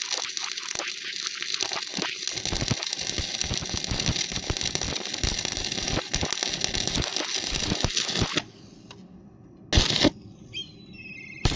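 Electric arc welding: the arc crackles and sizzles with many sharp pops. It cuts out about eight seconds in, flares briefly near ten seconds, and strikes up again right at the end.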